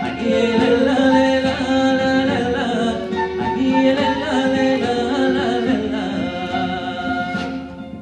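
Live band music with singing, a folk-style tune played by a small group with instruments and a voice; the music thins out and drops in level near the end.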